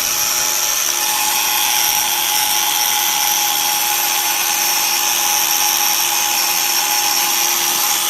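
DeWalt DCG412 brushed cordless angle grinder running steadily at full speed, free with no load, with a constant high whine. It runs on by itself and will not stop because melted wires bypass its switch.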